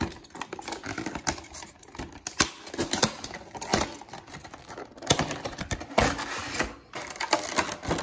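Cardboard collector box being opened and its clear plastic insert tray handled: an uneven run of rustles, scrapes and clicks of cardboard and stiff plastic.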